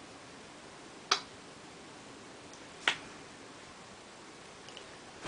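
Two sharp snaps, a little under two seconds apart, against a quiet room.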